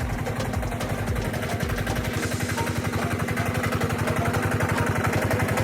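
A small engine running steadily with an even, fast chug that grows slightly louder toward the end.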